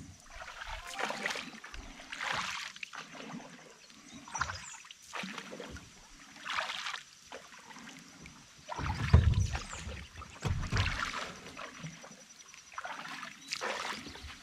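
Canoe paddling: a long wooden paddle dipped and pulled through the water, a splashing swish about every second or so, with a louder low thump about nine seconds in.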